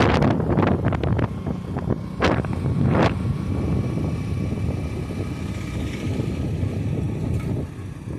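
Wind buffeting the phone's microphone outdoors: a heavy low rumble with irregular gusts, easing a little after the middle.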